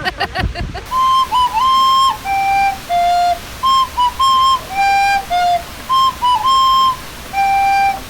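A short melody on a flute-like wind instrument: a quick high figure followed by two lower held notes, the phrase played three times. A voice is heard briefly at the very start.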